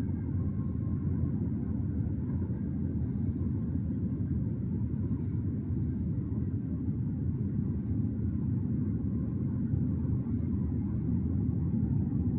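Steady low rumble of a long freight train of container cars rolling past at a distance.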